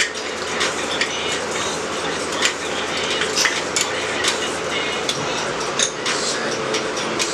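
Hand tools clicking and clinking on metal, a string of irregular sharp clicks over a steady background hiss, as bolts are worked off a Nissan VQ37VHR engine's accessory drive.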